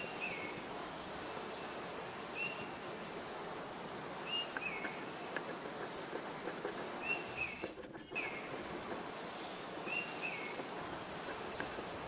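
Small birds calling over a steady outdoor background hiss, the same short chirping call repeating every second or two. The background drops out briefly about eight seconds in.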